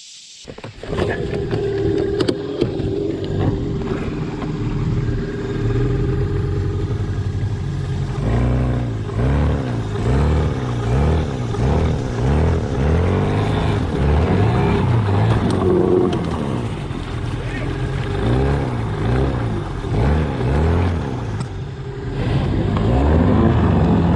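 A boat's outboard motor comes in suddenly about a second in and runs loudly. From about eight seconds in it revs up and down over and over, its pitch rising and falling roughly once a second.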